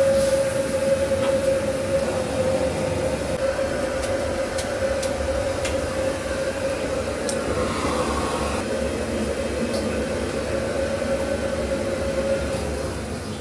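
Steady roar of a commercial kitchen's gas wok range with a constant whistling tone that stops near the end. A few light metal clinks of utensils.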